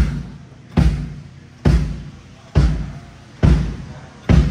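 A drum on a drum kit struck alone at a steady slow pace, about one hit every 0.9 seconds. Each hit has a heavy low thud and rings out before the next one.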